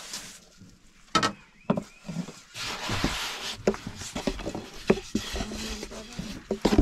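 A long, thin wooden rolling pin knocking and rolling on a floured wooden board as flatbread dough is rolled out: a few sharp wooden knocks, a stretch of rubbing, then a run of lighter taps.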